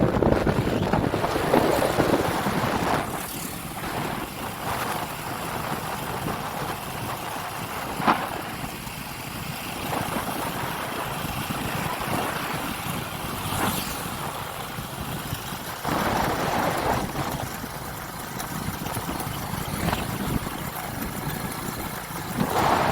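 Engine running steadily, with a few short knocks; the sharpest comes about eight seconds in.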